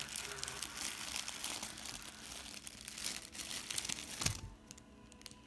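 Plastic Halloween treat bag crinkling and rustling as a child's hands rummage inside it. The crinkling stops about four seconds in with a soft thump.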